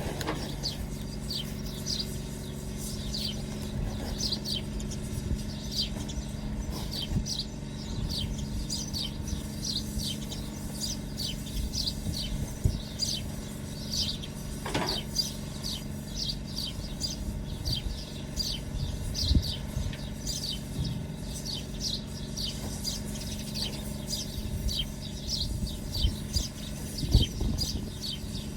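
Small birds chirping over and over, short falling chirps a few times a second, above a steady low mechanical hum, with a few faint knocks.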